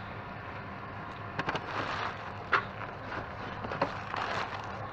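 Rummaging through bags of discarded things: scattered rustles and crinkles with one sharper knock about two and a half seconds in, over a steady low hum.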